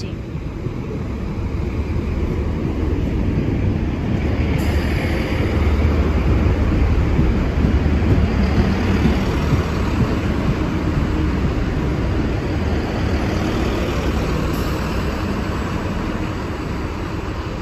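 Chiltern Railways Class 165 diesel multiple unit running into the platform and slowing as it passes: a low rumble of diesel engines and steel wheels on rail. It builds over the first several seconds, is loudest midway, then eases a little as the train slows.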